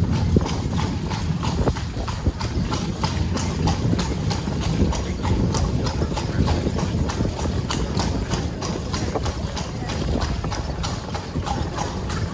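Carriage horse's hooves clip-clopping in a steady rhythm on cobblestones, over a steady low rumble of the carriage wheels rolling on the stones.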